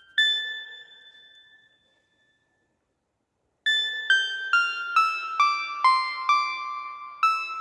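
Background music of high, bell-like keyboard notes, tagged as piano: one ringing note that fades, about two seconds of silence, then a falling run of notes at about two a second.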